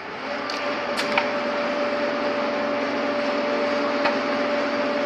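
Electric motor coil taping machine running: a steady motor hum with a clear steady tone that starts just after the beginning and stops at the end, with a few sharp clicks about a second in and again near the end.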